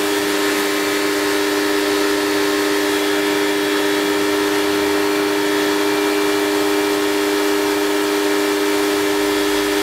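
Compact electric pressure washer running steadily: its motor and pump give a loud, even, two-note hum, with the hiss of the water jet over it.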